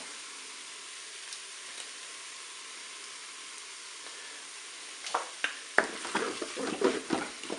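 Chicken pieces and onion sizzling steadily in the hot non-stick bowl of a Cookeo multicooker set to browning. From about five seconds in, a wooden spatula stirs and scrapes through them in quick strokes.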